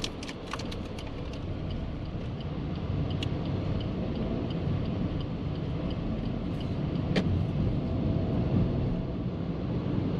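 Maruti Suzuki Ciaz driving, heard from inside the cabin: steady engine and tyre rumble with road hiss. Faint regular ticking in the first few seconds and a single sharp click about seven seconds in.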